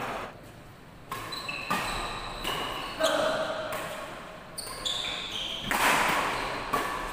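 Badminton rally: several sharp racket strikes on the shuttlecock, roughly a second apart, with brief shoe squeaks on the court floor between them.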